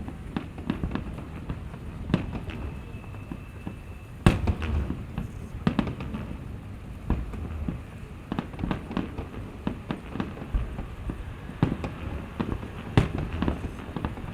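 Fireworks display: an irregular string of sharp bangs and crackles over a continuous low rumble, the loudest bang about four seconds in.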